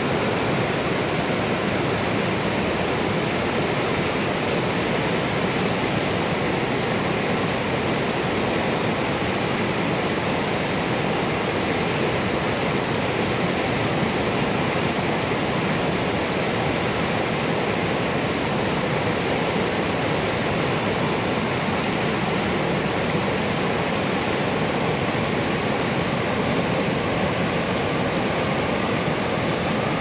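River in spate rushing over rocks through rapids: a steady, unbroken rush of water.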